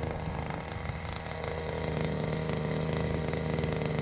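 Small outboard motor on a fishing kayak running steadily at low trolling speed, a constant buzzing hum.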